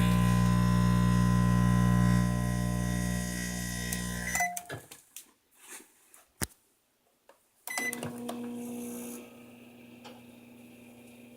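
Microwave oven running with a loud, steady hum. It cuts off about four and a half seconds in, with a few sharp clicks. A fainter hum starts again near eight seconds in and drops quieter a second or so later.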